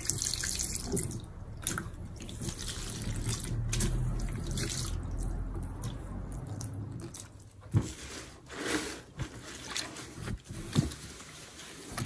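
A thin stream of purple Ajax liquid cleaner poured from a bottle, splashing onto wet kitchen sponges in a plastic tub. After about seven seconds the pouring stops, and a few wet squishes and sharp knocks follow as the soaked sponges are handled.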